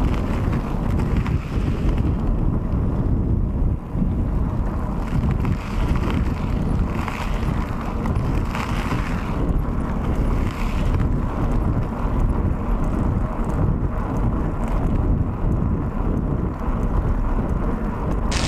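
Steady wind noise on the microphone of a handlebar camera, over the low rumble of mountain bike tyres rolling on broken, patched asphalt.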